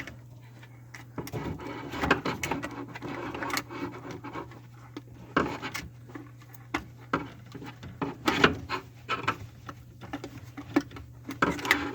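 Hands working electrical wire into a garbage disposal's wiring compartment: scattered small clicks, light knocks and rubbing, over a steady low hum.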